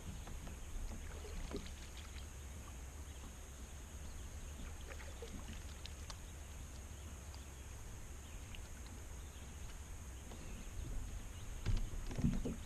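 Small fishing boat on the water: a steady low rumble with scattered light clicks and knocks, and a few louder thumps near the end.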